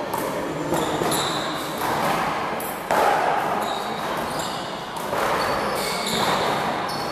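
Small rubber handball smacking against the front wall and bouncing off the floor several times during a rally, each hit echoing around a large hall; the loudest hit comes about three seconds in.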